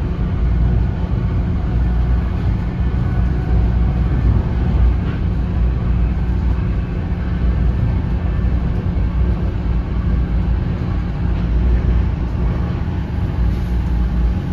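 Cabin sound of a moving NJ Transit Arrow III electric multiple-unit railcar: a steady low rumble of wheels and running gear on the rails, with a faint hum over it.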